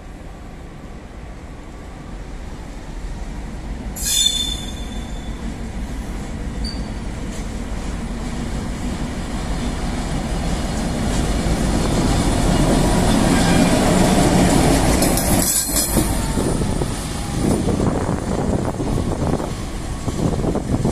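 An Infrabel class 62 diesel locomotive, with a two-stroke EMD V12 engine, running light. It draws near, passes and pulls away, its engine and wheel noise building to a peak about two-thirds of the way through, then easing. A short, sharp high squeal sounds about four seconds in, and another high screech comes just before the peak fades.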